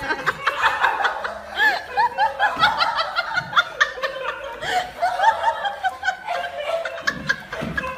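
People laughing hard: a long run of quick, short laughs from more than one voice.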